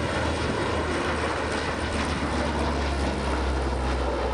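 A steady rumbling roar with a strong low hum underneath, unchanging throughout.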